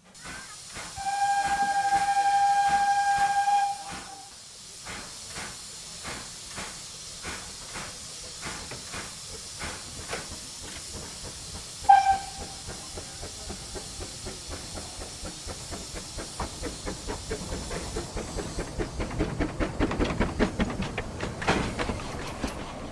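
Narrow-gauge steam locomotive sounding one long whistle, then starting away with exhaust beats at about two a second that quicken over the following seconds, over a steady hiss of steam. A short, sharp whistle toot comes about twelve seconds in.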